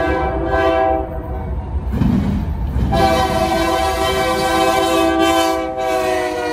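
Multi-chime air horn of a BNSF C44-9W diesel locomotive leading a freight train, sounding two blasts: one of about two seconds, then after a short gap a longer one that drops slightly in pitch as the locomotive passes. The diesel engines' low rumble runs underneath.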